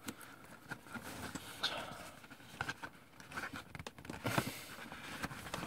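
Fingernails picking and scratching at the sealed flap of a cardboard toy box, with faint scattered scratches, small clicks and rustling of the cardboard.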